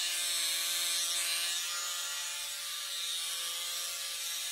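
Fun Fly Stick's small motor running with a steady buzzing whine as it drives the wand's internal belt over its pulleys to build up static charge.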